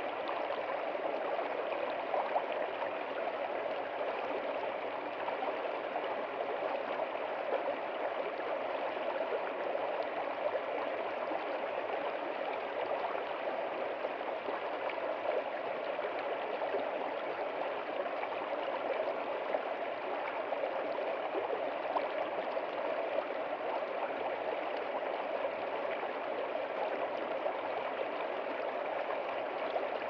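A shallow stream running over rocks, a steady babble of water with no breaks.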